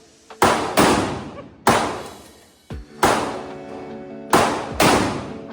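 Six gunshots at irregular intervals, each with a long echoing decay, over background music.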